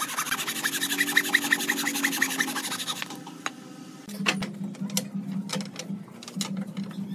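Japanese-style handsaw cutting a small pine wedge in quick, even, rasping strokes for about three seconds. After a short lull come scattered light clacks of loose wooden slats being handled.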